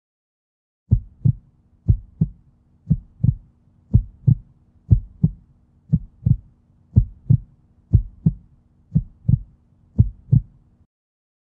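Heartbeat sound effect: pairs of low thumps, about one pair a second, over a steady low hum, starting about a second in and stopping shortly before the end.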